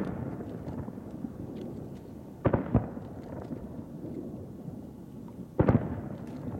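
Aerial firework shells bursting in loud booms: two bangs close together about two and a half seconds in and another near the end, each trailing off in an echoing rumble.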